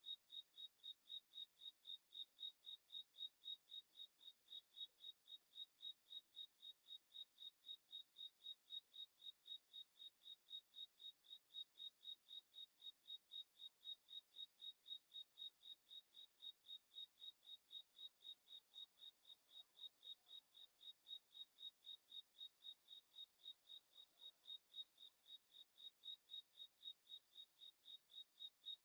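Cricket chirping faintly and steadily in a regular rhythm of about three high-pitched chirps a second.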